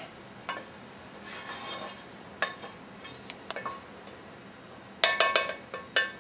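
Wooden spatula scraping diced bacon out of a stainless steel frying pan, with scattered light knocks, then a few louder ringing clanks of the pan about five seconds in.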